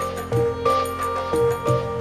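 Calm new-age instrumental background music: held notes over a steady low tone, with new notes coming in every half second or so.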